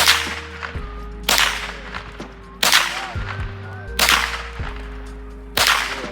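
Background music with sustained chords and a steady bass, and a sharp clap-like snap on the beat about every second and a half, five times.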